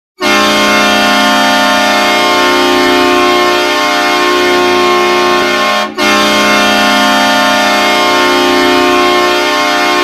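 Calgary Flames hockey goal horn sounding two long blasts: the first lasts nearly six seconds, and the second starts after a brief break and is still going.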